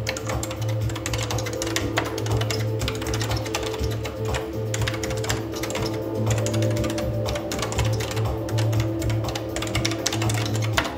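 Rapid, irregular key clicks from typing on a CP-500 microcomputer's keyboard, over background music.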